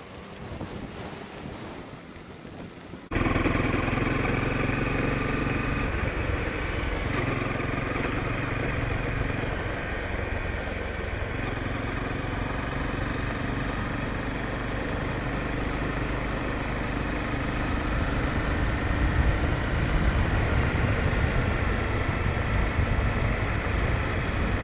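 Honda CRF250L dual-sport's single-cylinder four-stroke engine running steadily at cruising speed, heard from the rider's helmet camera over a low rumble of wind and gravel road noise. The sound jumps suddenly louder about three seconds in and stays there.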